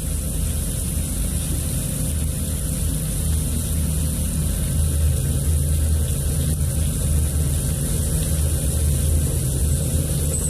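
Haas VF-2 CNC vertical mill drilling stainless steel angle iron under flood coolant: steady machining noise with a low hum and the hiss of coolant spray. The drilling sounds pretty bad, the drill struggling in the stainless.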